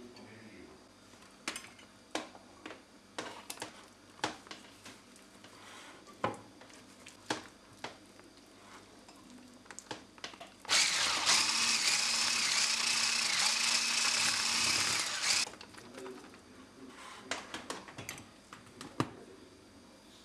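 Scattered light taps and clicks of utensils against a glass bowl. About halfway through, an electric hand mixer with whisk beaters starts, runs steadily for about five seconds beating butter and cream cheese together, and cuts off suddenly.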